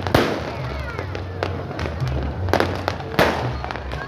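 Fireworks going off: sharp bangs about a second apart, some followed by crackling, with music playing underneath.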